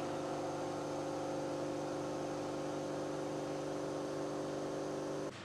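Steady mechanical hum from an engine test stand running at a constant speed: several unchanging tones that cut off abruptly near the end.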